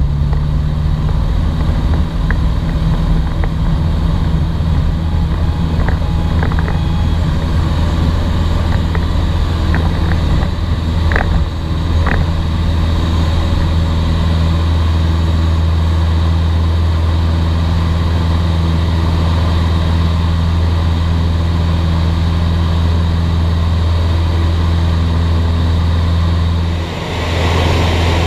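Jodel DR1050 light aircraft's engine and propeller running steadily at high power while the plane rolls along a grass runway, with scattered small knocks and rattles in the first half. About 27 s in the sound drops briefly, then runs on as steady cruise with more wind rush.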